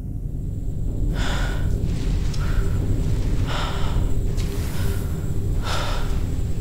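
A woman's frightened, heavy breathing, with gasping breaths about once a second, over a low rumble that swells in the first second or so.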